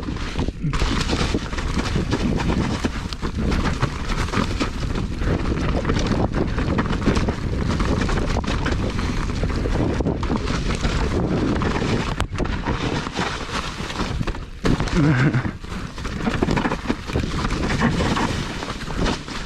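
A mountain bike descending a rough trail: wind rushing over the camera microphone, tyres rolling on dirt and rock, and the bike rattling and jolting over bumps.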